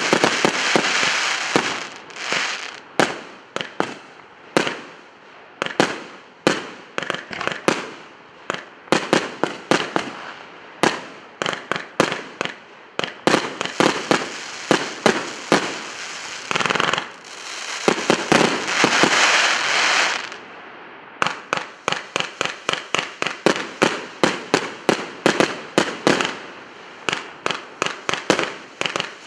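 Emperor Fireworks Maximum Impact 180-shot compound cake firing: a fast run of shot reports, about two to three a second, with long spells of dense crackling at the start and again about halfway through.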